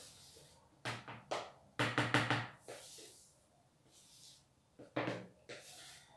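A mixing utensil knocking against the side of a mixing bowl while folding cake batter by hand: three knocks about a second in, a quick run of four around two seconds, and two more near five seconds.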